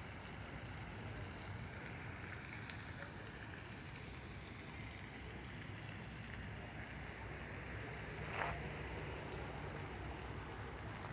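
Steady outdoor background noise with a low rumble, and one brief sharp sound about eight and a half seconds in.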